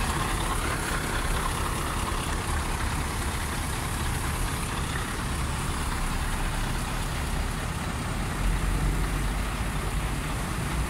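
Scania 144L 530 tractor unit's V8 diesel engine idling steadily, a low even rumble that gets briefly louder about eight seconds in.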